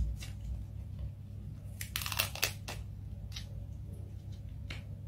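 A cat's claws tearing and scraping wallpaper off a wall: a cluster of short rips about two seconds in and a couple more later, over a low steady hum.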